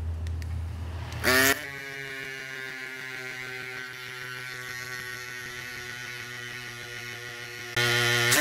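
Tiny battery-powered CYCPLUS Cube mini bicycle pump running with a steady motor whir while inflating a 29 x 2.5 in tire. About a second in it jumps up in pitch and loudness, and near the end it grows louder again.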